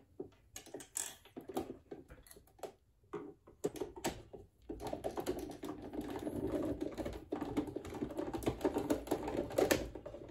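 A screw being set and then driven by a screwdriver into the plastic housing of a Brother sewing machine. There are a few scattered clicks at first; from about halfway it becomes a continuous rapid clicking and scraping as the screw is turned in.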